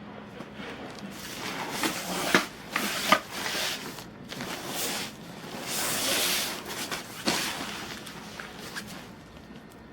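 Irregular rustling and handling noise with a few sharp clicks, loudest in the middle seconds.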